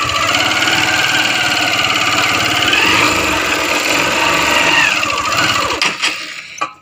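Motorbike engine running under load as the bike labours slowly through loose sand, its pitch rising and falling. It dies away near the end.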